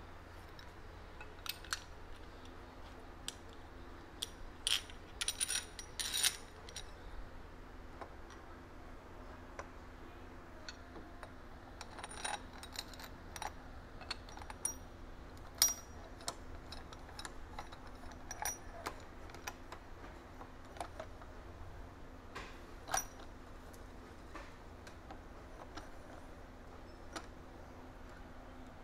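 Small metal parts clinking and tapping against each other as headset cups and a press tool of washers and nuts are handled and fitted. The clinks are irregular, several of them ringing briefly, with a louder cluster about five to six seconds in, over a low steady hum.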